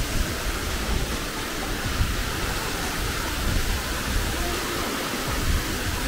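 Steady rushing of white water in a mountain stream as it cascades over rock ledges below a waterfall.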